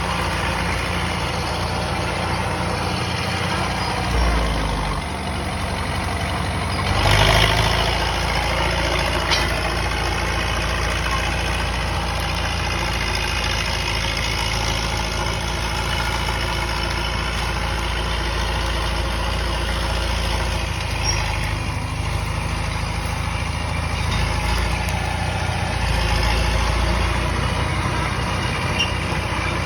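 Caterpillar D4E crawler dozer's diesel engine running steadily, with a brief louder burst about seven seconds in.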